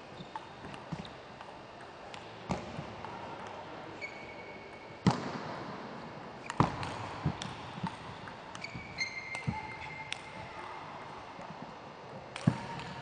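Table tennis ball clicking off paddles and the table in a doubles rally, with a few sharp knocks louder than the rest about five, six and a half and twelve and a half seconds in. Short high squeaks come between the hits.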